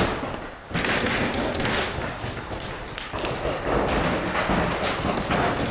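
Magfed paintball markers firing in a running exchange: irregular sharp thuds and pops, some in quick succession.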